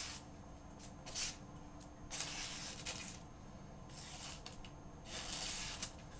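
Folding knife's S30V blade slicing through thin phone book paper: about five hissing cutting strokes, a couple of them long, drawn-out slices.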